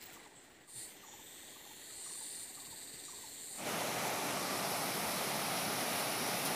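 Quiet forest background, then about halfway through the steady rush of a fast-flowing rocky river cuts in suddenly and stays loud.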